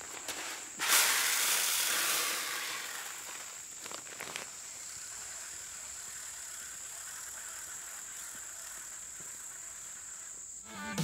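Granular urea fertilizer poured from a bag into an Earthway broadcast spreader's hopper: a rushing hiss about a second in that tapers off over the next few seconds. A steady high-pitched insect buzz runs underneath.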